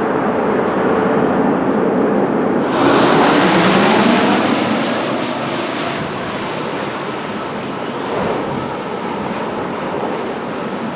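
Jet airliner passing close on landing approach: engine noise swells suddenly about three seconds in, with a faint falling whine, then slowly fades to a steady rumble.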